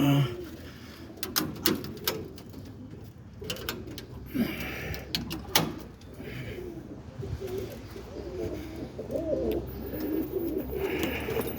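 Roller pigeons cooing in a loft. The low, wavering coos are densest in the second half, with a few sharp clicks and knocks mixed in.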